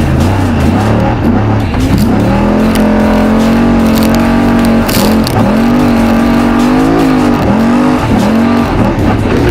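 Trophy truck's race engine running hard, holding a steady pitch for a few seconds, then dropping and climbing again several times as the throttle comes off and on. A short sharp clatter comes about five seconds in.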